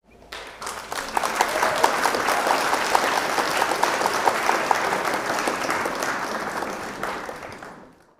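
Crowd applause: many hands clapping in a dense crackle, swelling in over the first second and fading out near the end. A quick run of short, evenly spaced tones sounds over the clapping in the middle.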